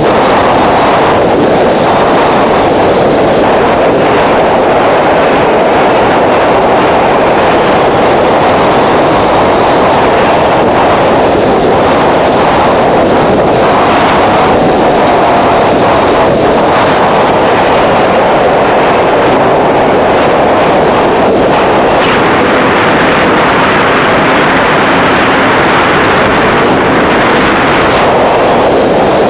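Steady, loud rush of wind and airflow noise on a fixed-wing FPV plane's onboard audio, with the motor throttled back while the plane glides into strong wind. A faint whine wavers briefly near the middle.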